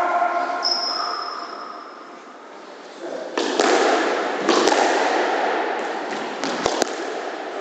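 Squash ball being struck by rackets and smacking off the court walls during a rally: several sharp smacks from about three and a half seconds in.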